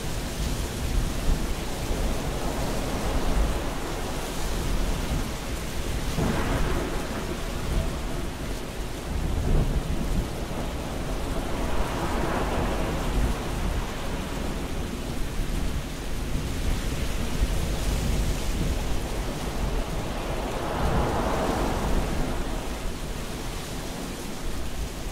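Thunderstorm: steady rain with thunder rolling in three slow swells, about a quarter of the way in, halfway, and again near the end.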